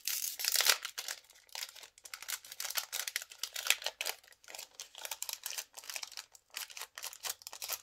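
Foil Yu-Gi-Oh! booster pack wrapper being crinkled and torn open by hand: a dense run of short, crisp crackles.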